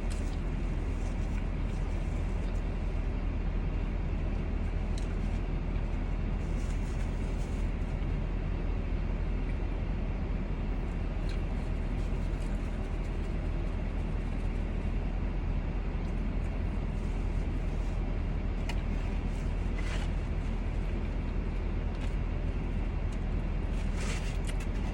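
Steady low hum of a car's cabin while it is stopped and running, with a few faint clicks.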